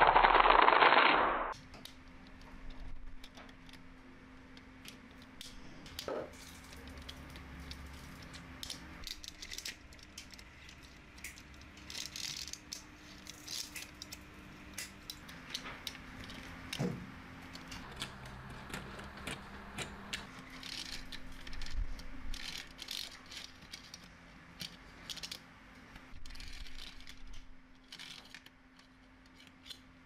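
Small magnetic balls clicking lightly against one another as fingers press and peel a sheet of them: many small irregular clicks, a few louder. Opens with a brief loud rush of noise lasting about a second and a half.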